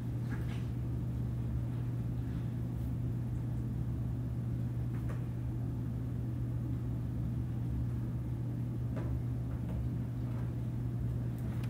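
Classroom room tone: a steady low hum with a few faint clicks.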